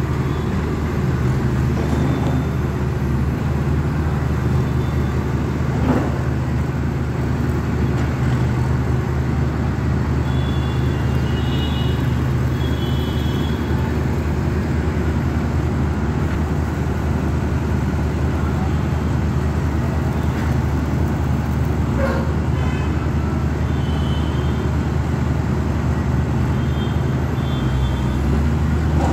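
Diesel engine of a heavy crawler construction machine running steadily, a low even drone.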